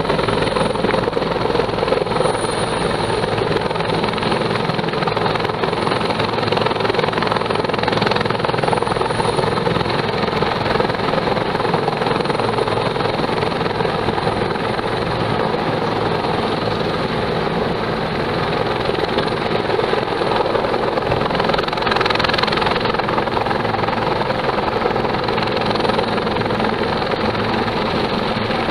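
Helicopter hovering low and then flying along the hillside, its rotor and turbine engine running steadily and loudly.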